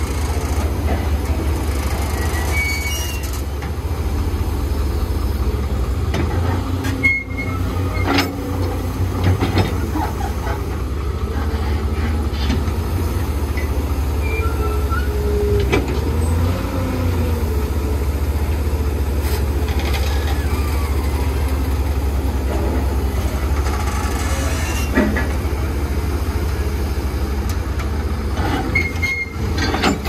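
Excavator's diesel engine running steadily with a deep rumble, with scattered metallic clanks and short squeaks from the working machine. About halfway through the engine rises and falls in pitch as it takes a load.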